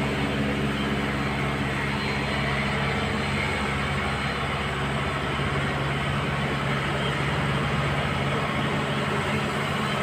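Hyundai wheeled excavator's diesel engine running steadily as the machine slews its upper structure round.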